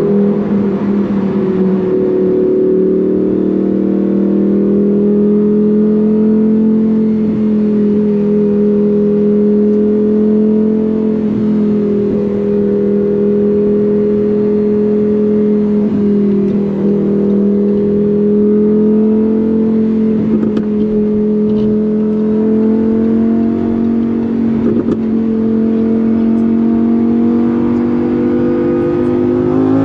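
Lamborghini Huracán Performante Spyder's V10 engine and exhaust running at a steady cruising speed, holding a nearly even drone. Right at the end the pitch starts to climb as the car accelerates.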